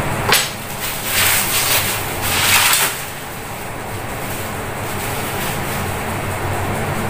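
Cardboard box and plastic packaging being handled and rustled during an unboxing: a sharp click near the start, then two louder stretches of rustling in the first three seconds. A steady low hum runs underneath.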